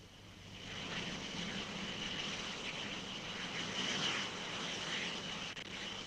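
Jet aircraft noise: a steady rushing sound with a thin high-pitched whine, swelling in over the first second and then holding steady.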